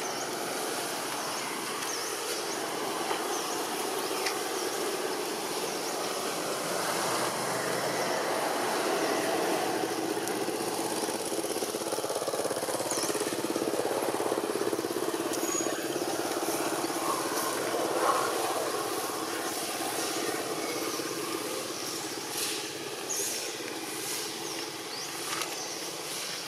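Steady outdoor background noise with a low rumble that swells through the middle and fades again, and faint short high chirps here and there.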